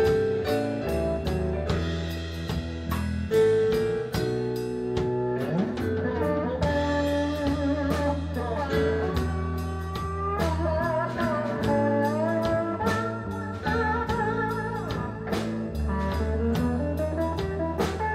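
Blues band playing live: an electric guitar lead with bent, wavering notes over a steady drum-kit beat and keyboard.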